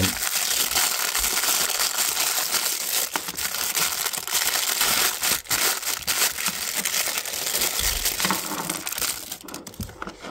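Clear plastic bag crinkling steadily as hands rummage in it and tip out the plastic radiator-valve adapters; the crinkling dies away near the end.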